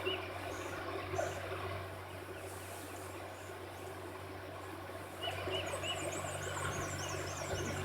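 Outdoor background of small birds chirping: a few short repeated chirps, then quick high twittering near the end, over a steady low hum.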